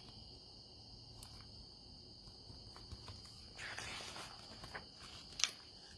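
Quiet pause filled by a faint, steady high-pitched tone, with a brief rustle about three and a half seconds in and a sharp click near the end.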